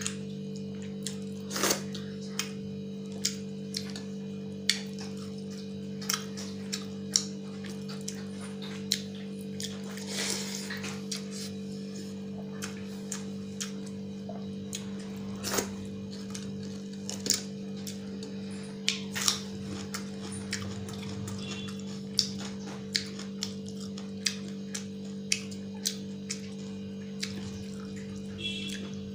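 Close-miked hand eating of pakhala, rice soaked in water: wet squelching as fingers mix the rice, with chewing and sharp mouth clicks about once a second. A steady electrical hum runs underneath.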